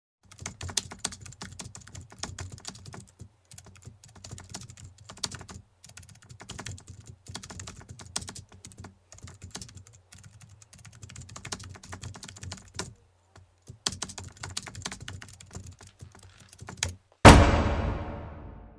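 Computer keyboard typing: quick, irregular runs of key clicks broken by short pauses. Near the end a single loud hit cuts in and rings away over about a second and a half.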